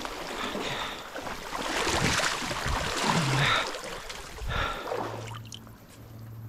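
River water rushing and splashing close by, in uneven surges. About five seconds in it drops away and a steady low hum takes over.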